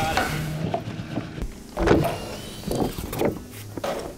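Work noise from a building site: several scattered knocks and clatter, with two short steady hums of a small motor, one near the start and one near the end.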